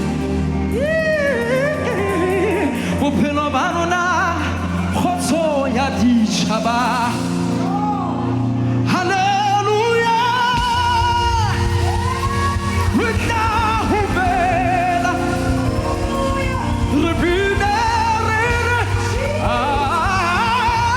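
Gospel worship song: a lead singer's voice wavers and glides in pitch over sustained musical accompaniment. The bass fills in more heavily about halfway through.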